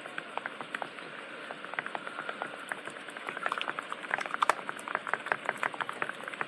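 Wooden stick stirring hand soap and salt fast in a container: rapid wet clicking and squelching that grows denser and louder about halfway through.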